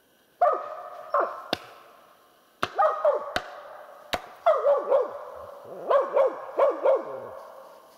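Laika hunting dog barking repeatedly in short, falling barks, some in quick pairs, at a marten treed in a birch. In the first half a few sharp knocks of thrown sticks striking the tree fall between the barks.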